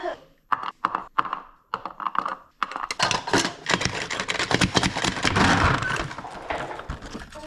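Kitchen knife chopping on a cutting board: a few separate cuts, then rapid, steady chopping from about three seconds in.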